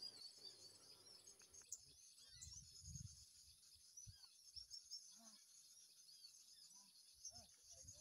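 Faint forest ambience: a steady high-pitched insect drone with a few brief, faint bird chirps scattered through it.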